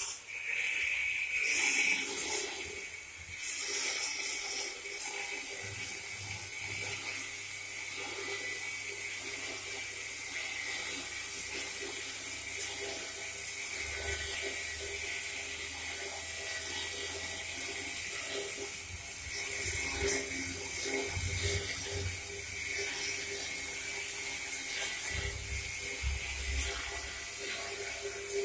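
Three-roll plate rolling machine running on its chain drive, rolling a steel sheet into a cylinder. Its drive gives a steady hum, while the sheet scrapes and rattles against the rolls with an on-and-off low rumble.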